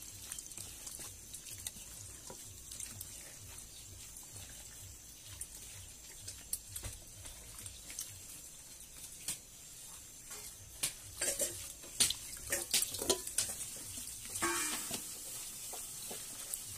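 Wet squelching and squishing of hands kneading and rubbing chicken pieces in a watery mixture in a plastic bowl, with many small clicks and splashes. It grows louder and busier in the second half.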